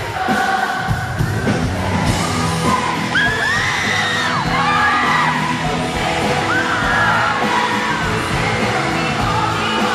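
Live pop song with singing, played loud through an arena sound system, with fans screaming high over it, most between about three and five seconds in.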